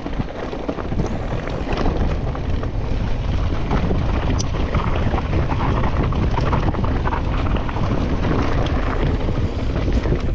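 Mountain bike descending a dry, dusty dirt trail: wind buffeting the microphone over a steady rumble of tyres on loose dirt, with frequent clicks and rattles from rocks and the bike.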